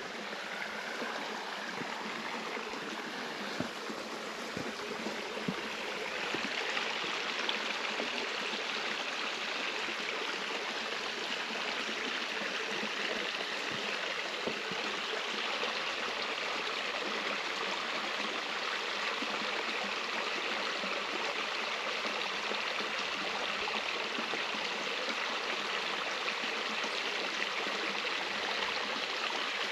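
A stream running: a steady rush of flowing water that grows a little louder about six seconds in, then holds even.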